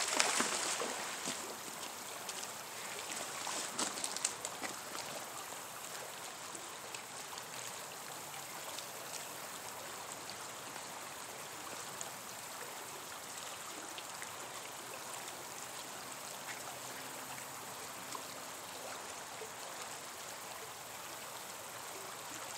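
A splash right at the start as the thrown neodymium magnet hits the water, then the steady rush of the creek, with a few faint ticks and rustles as the rope is drawn back in.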